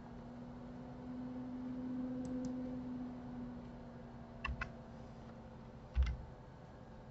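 Computer keyboard keys and mouse buttons clicking: a few faint clicks, then two quick clicks past the middle and a single louder one near the end, over a low steady hum that swells for a couple of seconds in the middle.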